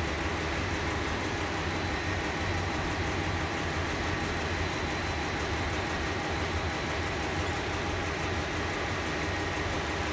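Steady drone of running engine-room machinery aboard a ship, a low hum with a few constant high whining tones over it.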